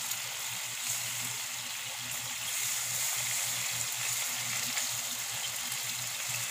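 Tuna steaks sizzling steadily in bubbling butter and sauce in a nonstick frying pan, with a steady low hum underneath.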